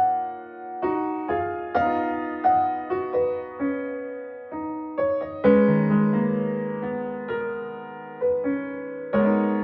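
Background music: a gentle piano piece, single notes and chords struck a few times a second and left to fade.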